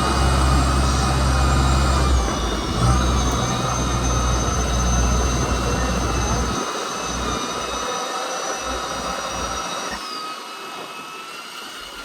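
Fishing boat's engine running with a steady low rumble and a thin high whine over it; the rumble drops away about six and a half seconds in, leaving mostly the hiss and whine.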